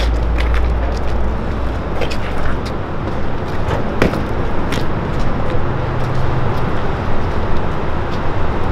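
Vehicle engine idling with a steady low rumble, and a sharp metal clank about four seconds in.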